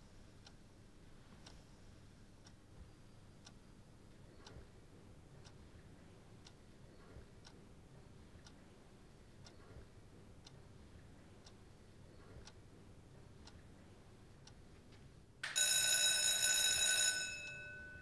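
A clock ticking faintly, about once a second. Near the end an electric school bell rings loudly for about two seconds, then fades.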